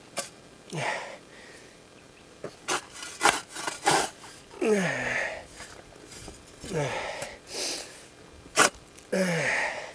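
A person coughing several times, each cough a short harsh burst that drops in pitch. Sharp knocks fall between the coughs, a cluster in the middle and one more near the end.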